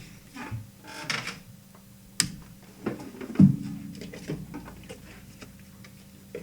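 Small tools and objects being handled on a workbench: rustling, a sharp click a little past two seconds and a knock about halfway through, the loudest sound, over a faint steady hum.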